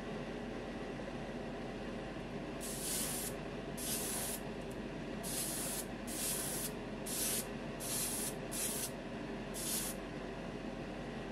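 Gravity-feed airbrush spraying paint in about eight short hissing bursts, each under a second, starting a couple of seconds in, with a steady low hum underneath.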